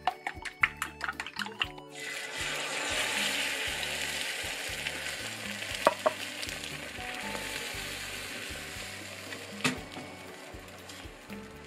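Chopsticks beating egg in a glass bowl, a quick run of clicks against the glass. About two seconds in, beaten egg hits a hot square tamagoyaki pan and sizzles, the sizzle slowly fading, with a couple of sharp taps from the chopsticks.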